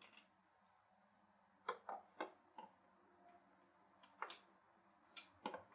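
Faint, scattered clicks and light taps, about seven in a few seconds, from hands working the replacement oil pressure sensor into place on a Chevy 5.3L V8. A faint low steady hum runs underneath.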